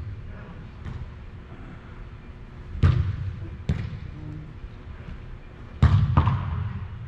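A football being kicked during play, sharp thuds echoing in a large indoor hall: about four kicks, two of them close together near the end.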